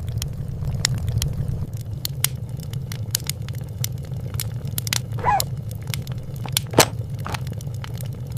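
Fireplace wood fire crackling: frequent small pops and snaps over a steady low rumble, with a louder pop about seven seconds in. A short wavering squeak sounds about five seconds in.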